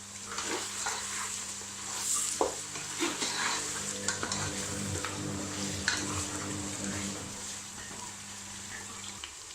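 Chicken pieces frying in ghee and spice masala with freshly added ginger paste, sizzling with a steady hiss while a spoon stirs and scrapes the pot with scattered clicks. A steady low hum runs underneath and cuts off near the end.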